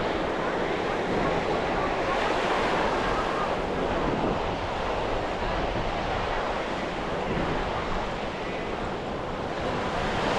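Ocean surf washing onto a sandy beach in a steady roar, with wind buffeting the microphone.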